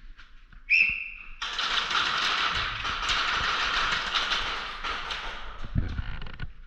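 A short, shrill, steady tone, then about five seconds of rapid, continuous clicking from airsoft guns firing.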